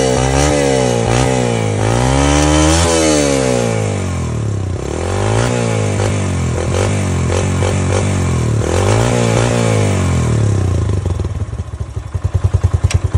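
Yamaha YBR 125G's single-cylinder four-stroke engine running and being revved up and down repeatedly through its silencer, which has just been cleaned of carbon with caustic soda. Near the end it drops to a slow, uneven idle of separate beats, then stops.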